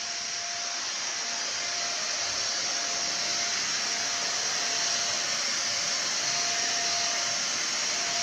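Vacuum cleaner running steadily as it is pushed over carpet: a constant rushing whoosh of air and motor with a faint steady hum, getting slightly louder in the first second.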